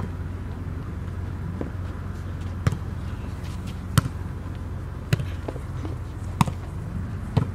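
A volleyball being struck or bouncing, a series of sharp hits about a second apart, over a steady low hum.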